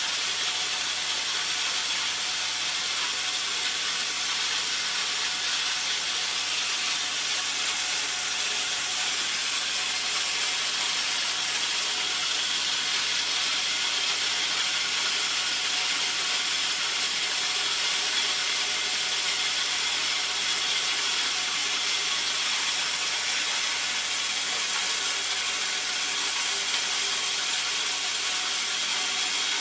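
A180 corn mill driven by a 2.2 kW electric motor, running under load with its pair of grinding plates cracking corn kernels into grits. It makes an even, dense grinding hiss with a faint hum beneath and no breaks.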